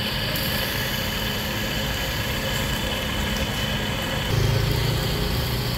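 A motor running steadily, with a louder low hum swelling in about four seconds in.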